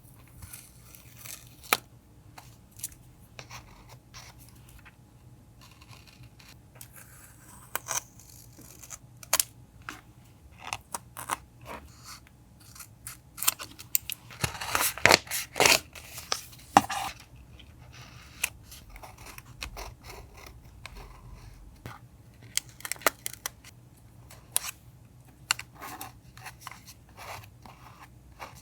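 Scissors snipping paper for a journal collage, with paper being handled, made up of scattered sharp snips and rustles. A denser, louder stretch of crinkling and cutting comes about halfway through.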